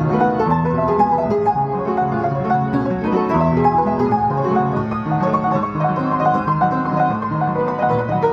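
Solo piano playing a classical piece, with a steady, unbroken flow of notes in quick succession.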